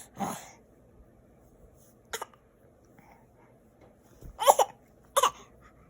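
Pretend coughing: four short, forced coughs spaced out with pauses between them, the loudest about four and a half seconds in.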